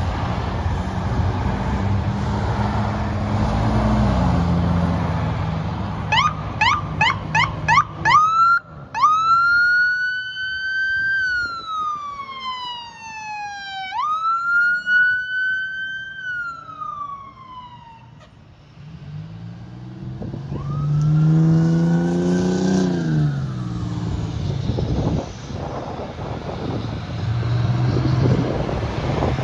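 Ambulance electronic siren: about two seconds of fast yelping chirps, then two slow wail cycles that rise and fall. A heavy diesel engine then revs up and eases off as the fire engine pulls away, with passing road traffic around it.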